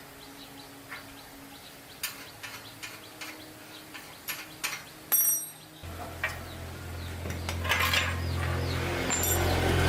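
Metal tools clicking and clinking against metal parts. About six seconds in, a steady machine hum starts, and a hiss grows louder under it.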